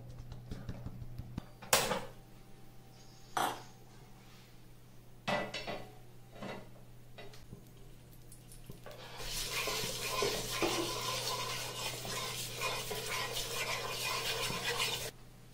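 A few separate knocks and clatters of kitchen utensils, then from about nine seconds in a steady hiss of hot oil sizzling on a flat tawa as a wooden spatula spreads it across the pan, cutting off suddenly near the end.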